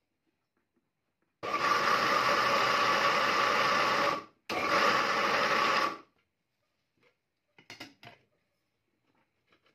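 Electric mixer grinder running in two runs, about three seconds and then about a second and a half with a brief stop between, grinding soaked rice and dal into idli batter. She puts the stopping down to the jar disconnecting as air passing through the lid pushes it up. Near the end comes a light clatter as the steel jar's lid is lifted off.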